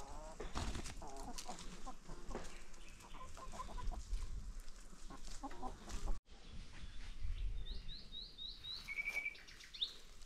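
Free-range chickens clucking in short, scattered calls. The sound drops out for an instant about six seconds in. Near the end a small bird sings a quick run of five high chirps followed by a short trill.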